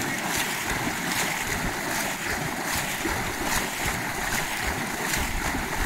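Shallow flood water splashing and churning steadily as several people wade through it, sweeping and pulling the water with both arms.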